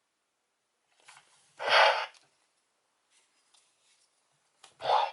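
Power Rangers Beast Morphers toy morpher playing electronic sound effects through its small speaker: a light click, then a short burst of hissing noise, twice, with quiet gaps between.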